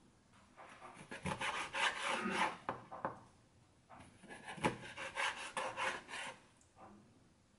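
Kitchen knife slicing a squid body into strips on a plastic cutting board, with quick rasping strokes as the blade cuts through and scrapes and taps the board. The strokes come in two runs, starting about a second in and again about four seconds in.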